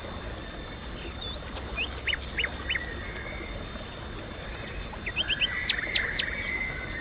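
Bird chirping: short, sharp call notes in two bursts, one about a second and a half in and a louder one around five to six seconds in, over a steady outdoor background hiss.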